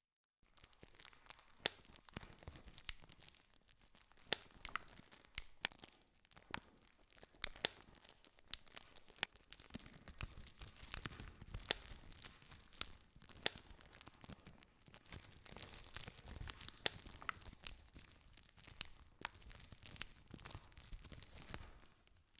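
Wood fire crackling: a steady hiss with frequent, irregular sharp pops and cracks, starting just after the beginning.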